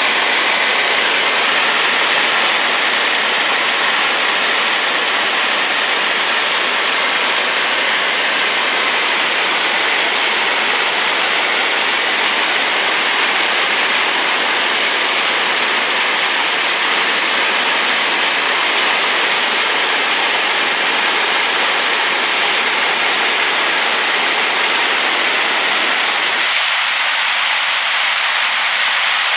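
Loud, steady rushing of a rain-swollen waterfall, the water carrying heavy sediment after rain. Its lower part thins slightly near the end.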